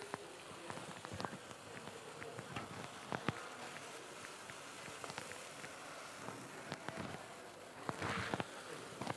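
NTGAS P31 professional gas paella burner running at high flame under a paella pan: a steady hiss, with the rice and broth bubbling and crackling in scattered ticks and pops.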